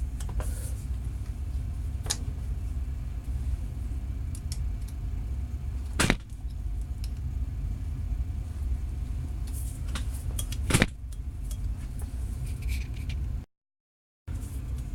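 A steady low rumble with three sharp clicks or knocks spread through it, and a brief total dropout near the end.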